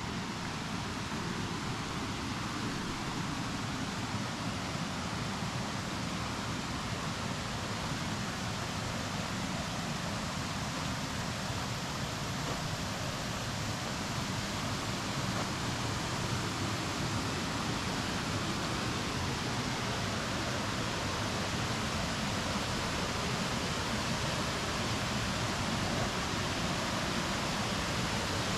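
Steady, even rush of water pouring over a small creek waterfall.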